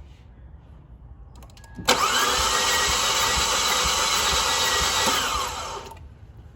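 2018 Fiat 500 engine cranked on its starter motor for about four seconds during a compression test, with a steady starter whine that winds down as the key is released. The test shows almost no compression in the cylinder, which the mechanic blames on valves damaged by broken spark plug fragments after the car was run on diesel.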